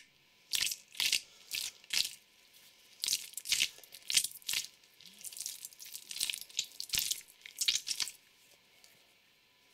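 Squishy mesh stress balls being squeezed: a quick series of short, crackly squelching bursts, about two a second, stopping about eight seconds in.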